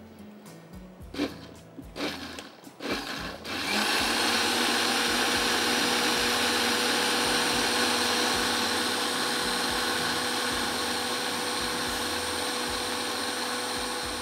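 Countertop electric blender starting about three and a half seconds in and running steadily, with a steady whine over its motor noise, as it purées cooked tomato chutney. A few light knocks come just before it starts.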